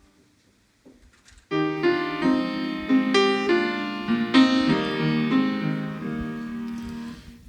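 Piano playing a slow introduction of sustained chords, starting about a second and a half in after a brief silence and fading out near the end.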